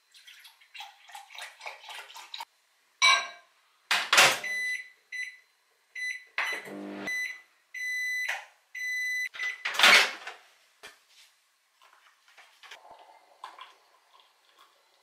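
Microwave oven beeping at the end of its cycle: a run of short, evenly spaced electronic beeps over about four seconds, about halfway through. Loud clunks come before and after the beeps, and at the start there is clatter as milk is poured from a carton into a glass.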